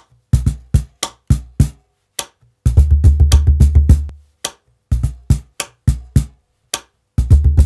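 Fejn wooden cajon played by hand: deep bass strokes and sharp slaps in a rhythmic groove, breaking into fast runs of strokes about a third of the way in and again near the end.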